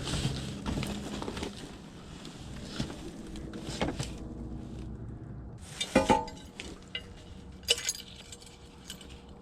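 Small hard items, metal and glass, clinking and rattling as they are handled. The loudest is one ringing clink about six seconds in.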